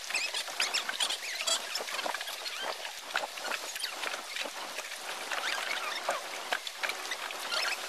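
Small sea waves lapping and splashing against the jetty's pilings and the shore below: a continuous, irregular patter of little splashes.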